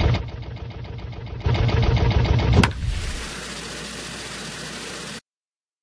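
Tractor engine revving hard, dropping back to a lower idle, then revving hard again. About two and a half seconds in there is a single sharp crack, then a steady hiss that cuts off suddenly near the end.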